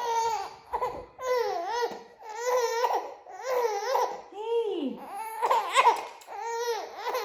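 Baby vocalizing: about seven short, high-pitched sounds, each rising and falling in pitch, roughly one a second.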